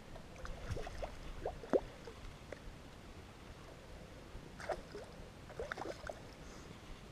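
Scattered small water splashes and drips, a few at a time in two short bursts, the sharpest one about two seconds in.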